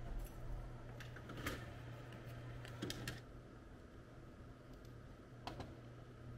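A few scattered light clicks and taps over a steady low hum.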